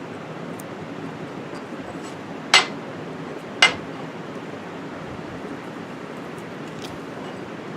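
Two sharp metallic clinks about a second apart, over the steady rush of a shop fan.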